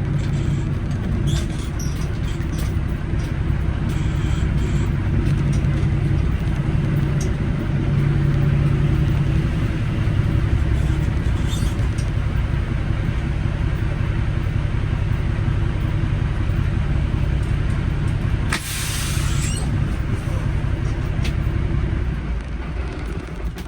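Cummins diesel engine of an International 9900 semi truck running with a steady low rumble, heard from the cab. A brief loud hiss comes near the end.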